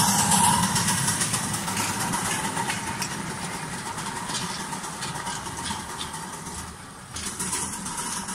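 A 7¼-inch gauge De Winton-type vertical-boiler steam locomotive passing close with steam hissing, then its slate wagons rolling by on the rails, the sound fading as the train moves away.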